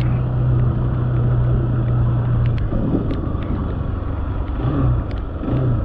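Single-cylinder motorcycle engine running at a steady speed on a dirt road, with wind and road noise and scattered ticks. About halfway through, the engine note drops as the rider backs off the throttle to slow down. Near the end come two short rises and falls in engine pitch.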